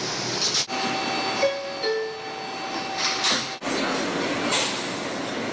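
New York City subway car's door chime: two falling notes, higher then lower, about a second and a half in, over a steady whine and the car's running noise. The sound cuts off abruptly twice, once near the start and again past the middle.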